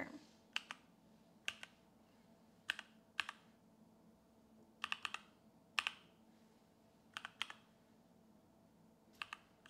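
Computer keyboard typing: about fifteen single keystrokes at an uneven pace, some in quick pairs or threes, with pauses of a second or more between groups.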